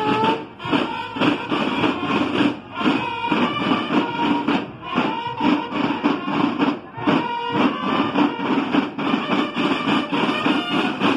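Drum-and-bugle marching band playing: bugle notes sounded over steady, rapid snare drum beating.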